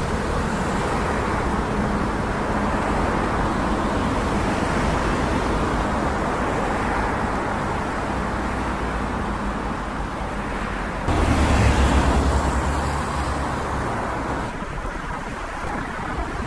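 Street traffic noise: a steady hum of cars going by, with one louder vehicle passing about eleven seconds in.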